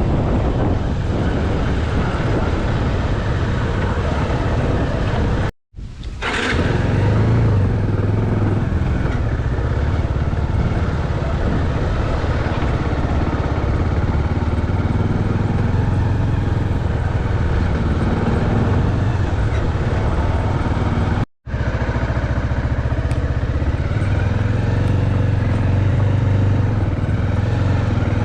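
Motorcycle engine running steadily while riding. The sound cuts out abruptly twice, at about five and a half seconds and about twenty-one seconds.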